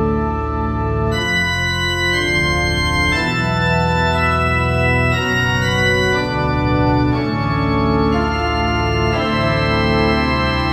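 Organ music: an organ air played as held chords over a low bass line, the harmony changing about every two seconds at an even loudness.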